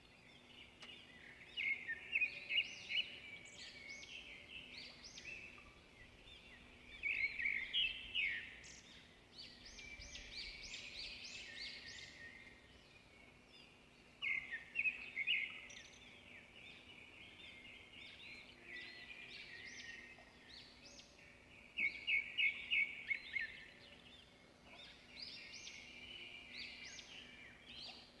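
Small birds chirping in repeated bursts of quick, high notes, over a faint steady hum.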